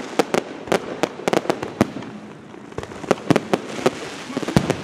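Fireworks display: aerial shells bursting in an irregular string of sharp bangs, which thin out for a moment near the middle before another quick flurry.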